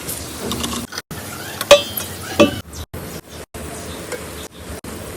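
Food sizzling as it fries in a pan while a metal spoon stirs it, clinking sharply against the pan twice in the middle, with a few brief silent breaks.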